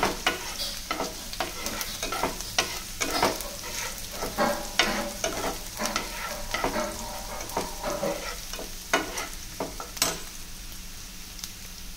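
Chopped onions sizzling in hot oil in a non-stick frying pan, stirred and scraped with a slotted metal spatula in many short strokes. The stirring stops near the end, leaving a quieter sizzle.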